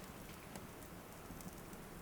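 Steady rain ambience with faint, scattered crackles of a fireplace.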